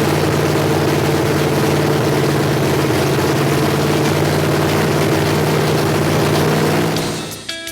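Ford FE big-block V8 running loud and steady on open headers with no exhaust system, held at raised speed to break in a new flat-tappet camshaft. Near the end it fades into guitar music.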